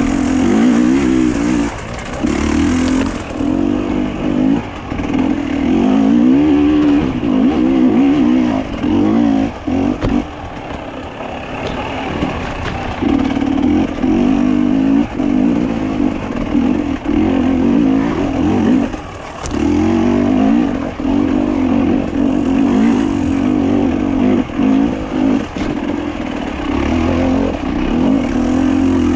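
A moving vehicle's engine running, its pitch wavering up and down, with brief drops every few seconds and a quieter stretch about ten to thirteen seconds in.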